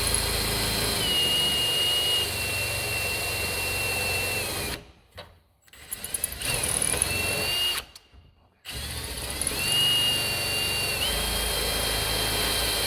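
Electric drill with a 5 mm bit drilling a hole through the vehicle's body panel, run in three bursts with two short pauses. The motor whine drops in pitch about a second in as the bit bites.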